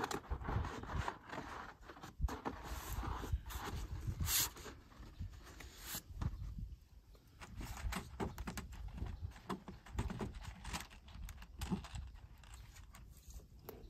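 Tar paper rustling and scraping against a wooden beehive as it is wrapped around the hive and pressed into place by hand, with scattered clicks and small knocks, busier in the first half.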